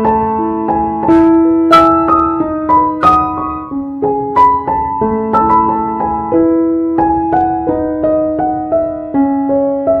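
Background music played on piano: notes struck one after another over held lower notes, each ringing and fading.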